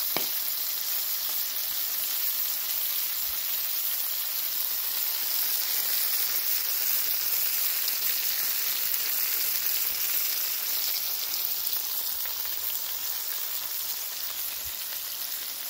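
Barbecue-sauced pork butt steaks sizzling in fat and grease on a hot flat-top griddle: a steady, even hiss.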